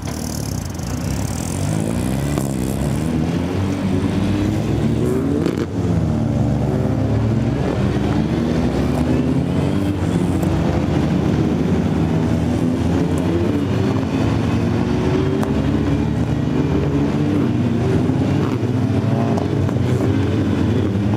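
Race car engine running hard on track, its pitch rising and falling as it revs up and is shifted and slowed, with a brief drop about five seconds in.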